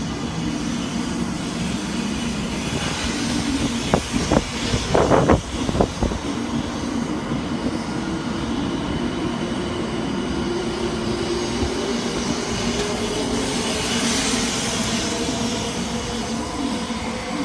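700 Series Rail Star shinkansen pulling out and accelerating along the platform: steady rolling noise with a motor whine that slowly rises in pitch. A few sharp knocks come about four to six seconds in.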